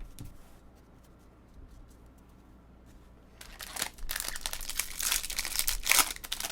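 Plastic wrapper of a trading card pack crinkling and tearing as it is opened. It starts about three and a half seconds in, after a quiet stretch.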